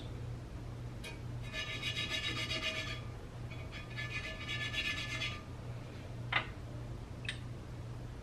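A hand rubbing a thin lime-and-water paste over the surface of a clay pot to cure it before first use: two stretches of rasping rubbing, each about a second and a half, then a couple of light taps near the end.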